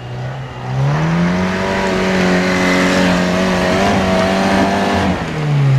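A small off-road 4x4's engine revs up hard about a second in and holds high revs as it pulls the vehicle up a steep muddy slope under load. The revs fall away about five seconds in.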